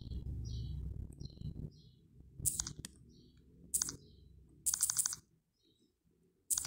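Fingers tapping on a smartphone touchscreen: a handful of short, sharp clicky taps spaced about a second apart, over a low hum that fades out before two seconds in.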